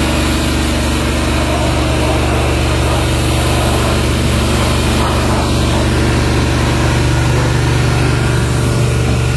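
A steady engine-like drone at an unchanging pitch, with a loud hiss over it.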